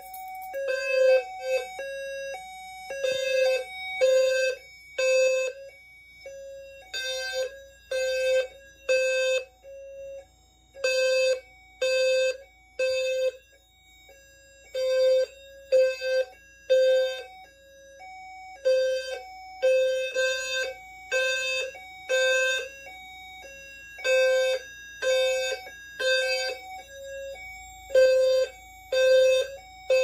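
System Sensor low-frequency horn strobes (P2RHLF and HRLF) sounding their 520 Hz tone in synchronized code 3: three pulses, a pause, repeating about every four seconds. This is the fire alarm evacuation signal after a pull station was activated.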